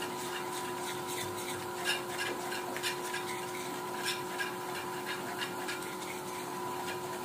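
Wire whisk scraping and clicking against the sides of a plastic bowl as it beats a thick paste of jaggery powder and ghee, with a steady faint hum underneath.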